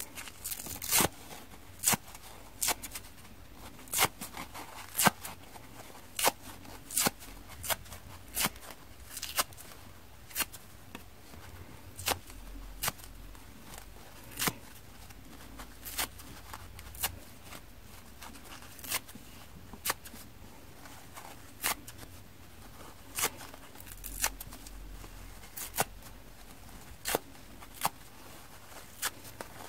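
The soft side of a dry sponge being torn apart by hand: short, sharp rips at uneven intervals, about one every second or so.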